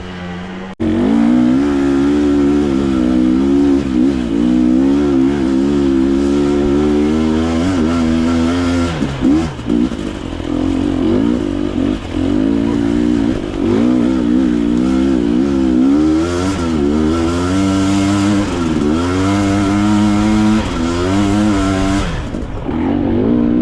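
Dirt bike engine revving up and down, its pitch rising and falling again and again. It starts abruptly about a second in.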